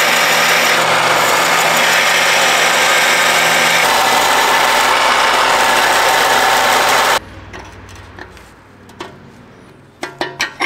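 Small bench belt sander running with a steel pinion bearing race pressed against the belt, grinding down its outside so the race will slide in and out of the bore as a setup race for adjusting pinion depth. It cuts off suddenly about seven seconds in, followed by a few light metal clicks.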